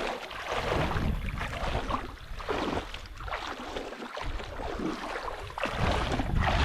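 Water splashing and sloshing around legs wading through a shallow river, in uneven strokes with each step. Wind buffets the microphone, rising near the end.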